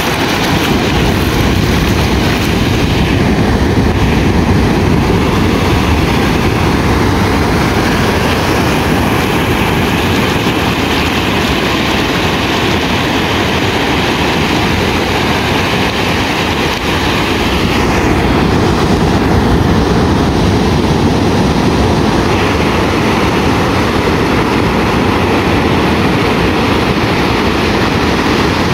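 Ocean surf breaking and washing up the beach in a loud, steady rush, with a heavy low rumble of wind on the microphone.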